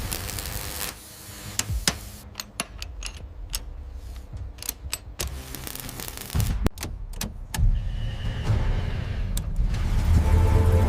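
Irregular sharp clicks and knocks, about a dozen of them, over a low rumble, with music coming back in near the end.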